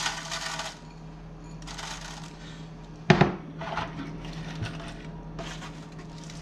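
Brown sugar scattered by hand into a buttered metal cake pan, then rattling and sliding across the metal as the pan is tilted and shaken to coat its sides. One sharp knock of the pan just after three seconds is the loudest sound.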